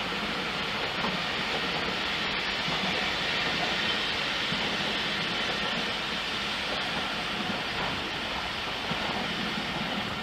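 A train of passenger coaches rolling past at steady speed: a continuous rumble and hiss of wheels on the rails.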